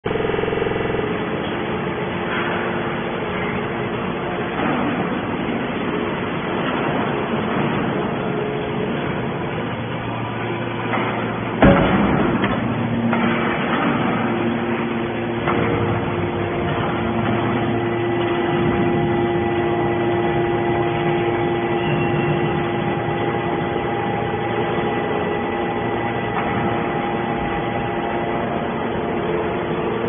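Hydraulic scrap metal baler running: a steady machine hum with several held tones, and one loud metallic clank about twelve seconds in. The hum changes pitch a couple of times after the clank as the press moves.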